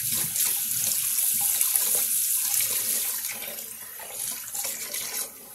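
Kitchen tap running into the sink while greasy, doughy hands are washed under the stream, a steady rush of water that grows quieter after about three seconds.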